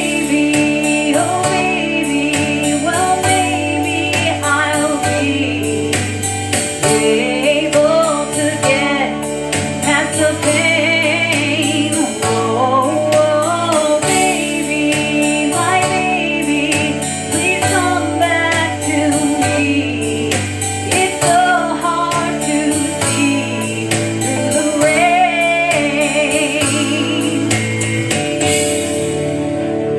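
Music: a female singer's wordless, gliding vocal runs over a steady band backing with bass and percussion.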